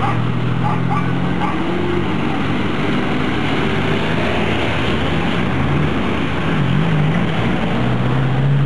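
Road traffic on a wet street: vehicle engines running under a steady wet hiss of tyres and rain. A low engine hum wavers in pitch about six seconds in and rises near the end.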